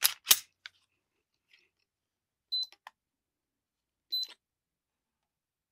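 Two sharp clicks of the pistol being handled, then two short electronic beeps from a Lyman digital trigger pull gauge, about two and a half and four seconds in, each with a faint click as the gauge takes the Girsan MC9's striker trigger pull, which reads about 6.5 pounds.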